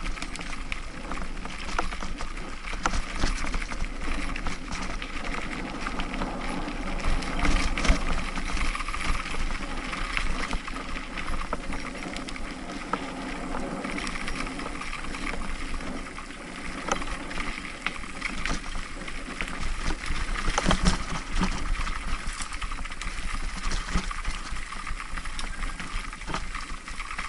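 Mountain bike rolling over a bumpy dirt trail, heard from the rider's own bike: tyres on loose dirt and gravel with a constant rattle and frequent sharp knocks as it rides over bumps. Part of the rattle is a jingle that the rider blames on loose coins.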